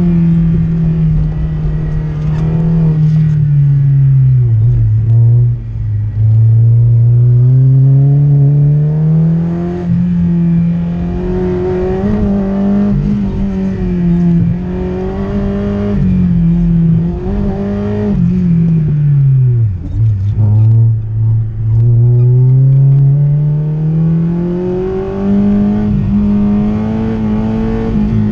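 Peugeot 106 Rallye's four-cylinder petrol engine heard from inside the cabin, revving up and down through corners under hard driving. The engine note drops sharply about four seconds in and again around twenty seconds in, each time climbing back steadily as the car pulls out of the turn.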